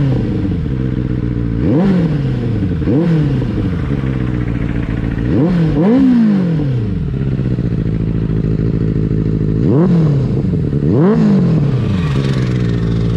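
Benelli 600i inline-four engine with a temporary non-stock exhaust idling, free-revved by blips of the throttle about seven times. Each rev climbs quickly and drops back to idle, some coming in quick pairs.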